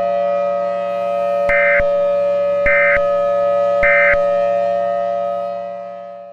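A civil defense siren holding a steady tone at several pitches. Over it come three short bursts of Emergency Alert System data tones, about a second apart, which are the end-of-message code that closes the alert. The siren then fades away near the end.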